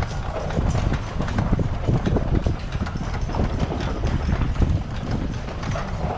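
A carriage horse's hooves clip-clopping on the asphalt street as it pulls the carriage, many quick strikes over a steady low rumble.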